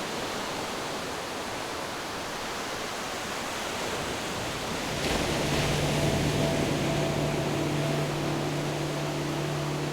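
Ocean waves breaking on a beach: a steady wash of surf that swells about halfway through. A low steady hum joins at that point and holds.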